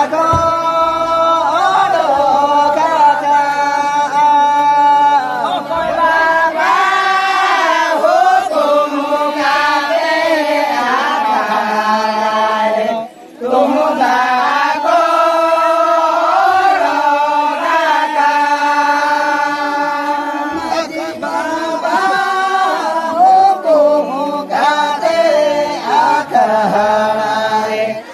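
A group of men singing a Santali Danta song (danta serenj) together in one melody, with long held notes and a short break about halfway through.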